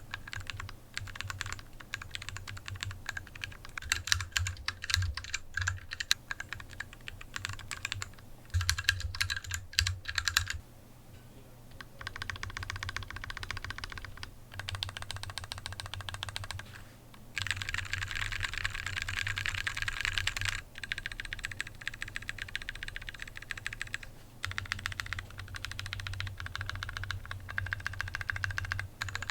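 Typing on a custom BM40 40% mechanical keyboard with lubed Kailh Royal switches, DSA-profile keycaps and an aluminium case: runs of quick keystroke clacks. There is a short pause about ten seconds in, and a very fast burst a little after the middle.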